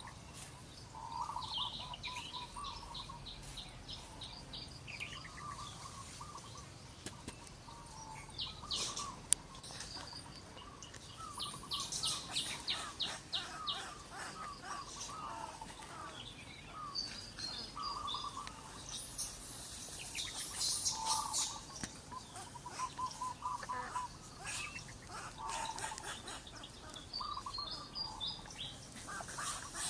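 Several birds chirping and calling, with quick trills of short repeated notes, some low and some high. There is a single sharp click about nine seconds in.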